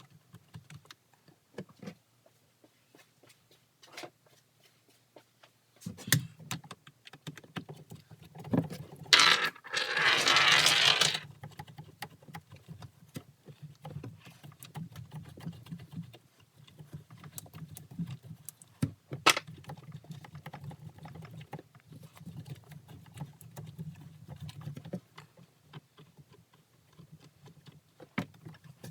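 Scattered clicks and taps of hand work on parts and tools, with a loud rasping noise lasting about two seconds around nine seconds in and a low hum under the middle part.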